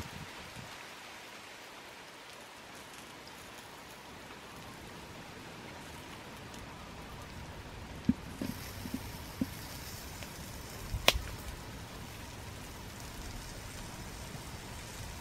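Wood fire hissing under a wet clay pot that has just been set over it, the sizzle growing fuller about eight and a half seconds in as the pot steams. A few soft knocks as the pot is settled on the hearth stones, and a sharp clink about eleven seconds in as the clay lid goes on.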